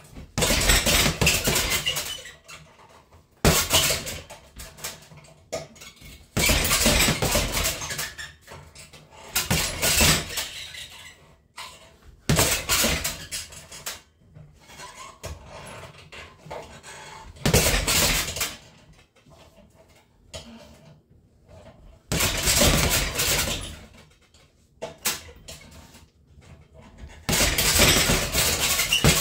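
Gloved punches landing on a hanging heavy bag in flurries of one to two seconds, about eight of them with short pauses between. The bag's chain and its metal stand clink and rattle with the blows.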